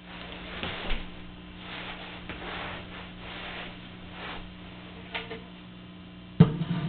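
Soft rustling and handling noises as a didgeridoo is picked up and brought into position, over a steady low electrical hum. A sharp knock near the end is the loudest sound.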